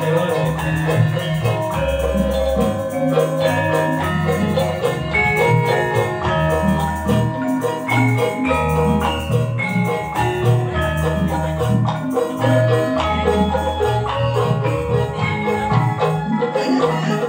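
Javanese gamelan ensemble playing: bronze metallophones ring out a busy struck melody over low notes that recur about every second and a half.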